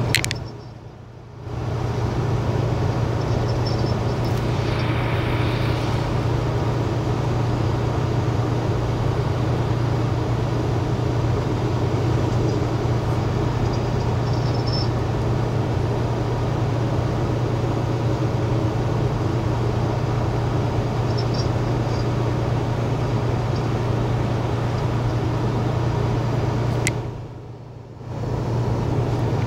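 Steady road noise inside a moving car at highway speed: a constant low hum with a wash of tyre noise. The sound drops away briefly about a second in and again near the end.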